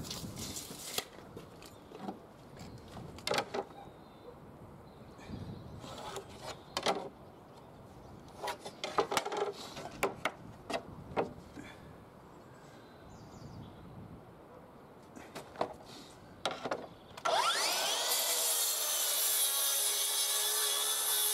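Makita cordless track saw spins up with a rising whine about seventeen seconds in and crosscuts a wide softwood shelf plank along its aluminium guide rail. Before that, scattered light knocks and clicks as the rail and board are handled.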